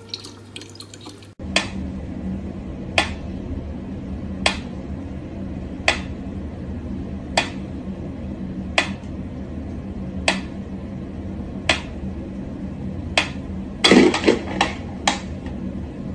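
Mechanical pendulum metronome ticking slowly and evenly, about one sharp tick every second and a half, starting about a second and a half in. Near the end comes a brief clatter of several louder knocks.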